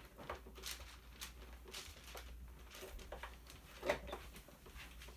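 Scattered light clicks and taps of small hard objects being handled, over a low steady hum; the sharpest click comes about four seconds in.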